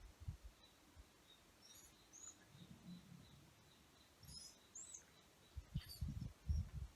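Faint bird chirps, several short high calls spread through, over low dull thumps that grow loudest near the end.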